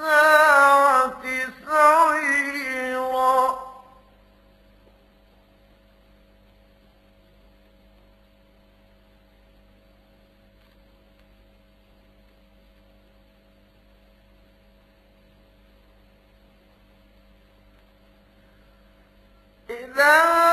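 A man's melodic Quran recitation in murattal style ends a long held phrase a few seconds in. A faint, steady electrical hum of the recording with several even tones follows, and the chanting resumes just before the end.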